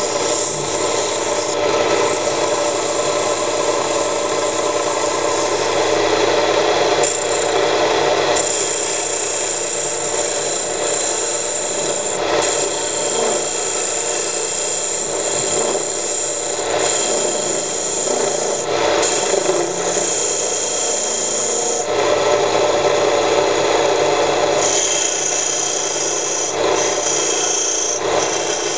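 A homemade wood lathe runs with its motor humming steadily, while a small hand-held abrasive is pressed against the spinning turned wood. The contact gives a continuous rasping rub that shifts a little as the pressure and position change.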